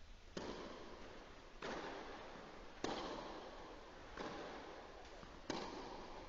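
Tennis racket strikes on the ball during a baseline rally, five hits about a second and a quarter apart, each echoing in a covered hall.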